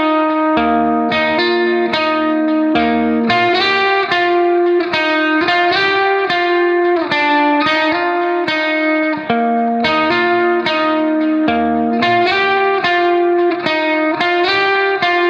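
Background music: a steady run of plucked, guitar-like notes over held lower notes.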